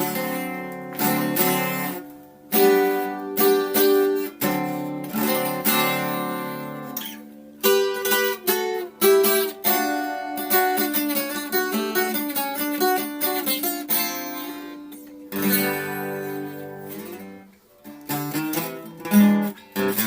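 Acoustic guitar being played: strummed chords that ring out and fade, with a passage of single picked notes in the middle, then chords again near the end.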